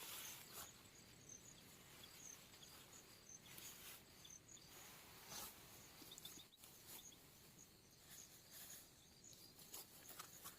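Near silence with faint, high insect chirps repeating a couple of times a second.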